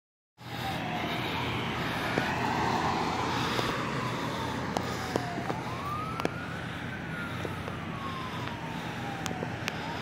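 Fire engine siren on wail, its pitch slowly rising and falling, over the steady drone of the truck's engine.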